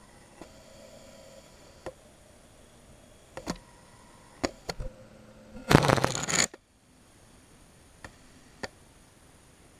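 Handling noise: scattered light clicks and taps, with one loud brief rustling scrape a little past the middle.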